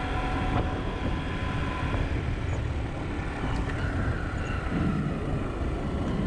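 A vehicle travelling along a rough, unpaved road, giving a steady low rumble of engine and road noise.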